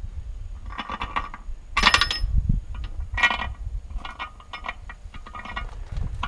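Metal clinking and rattling in several short bursts as the heavy loaded tire's steel rim is jiggled outward along the wheel studs.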